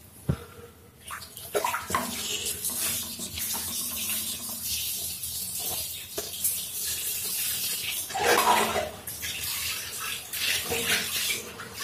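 Water scooped from a plastic basin with a hand dipper and poured over a cat, splashing onto a tiled floor in uneven pours, the heaviest near the end.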